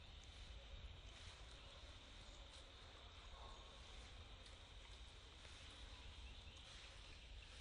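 Near silence: faint outdoor background hiss and low rumble, with a few soft ticks.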